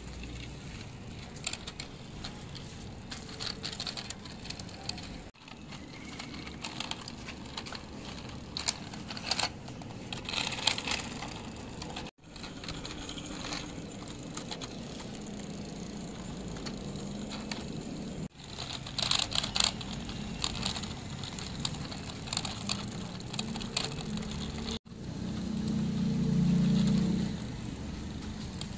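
Die-cast metal model bus pushed by hand over rough concrete: its small wheels roll with a gritty rattle and scattered clicks. The sound breaks off briefly several times.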